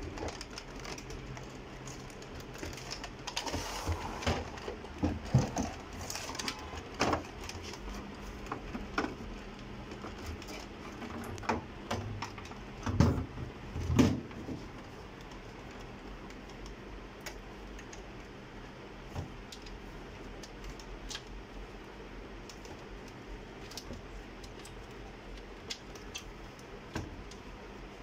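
Plastic clicks and knocks of an HP Scanjet Enterprise 7500 scanner's housing and ADF cover being handled during disassembly. The clicks come in a busy cluster through the first half, with two louder thumps about halfway. After that there are only occasional light clicks.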